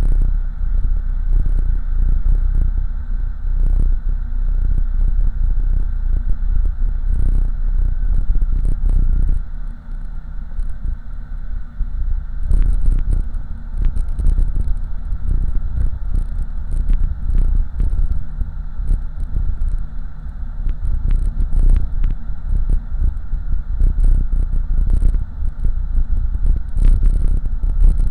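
Heard from inside the cabin: a 1987 Oldsmobile Cutlass with a swapped-in 5.3-litre LS V8 cruising, a steady low engine-and-road rumble that drops off briefly about ten seconds in and then comes back up, with frequent small rattles and clicks over it.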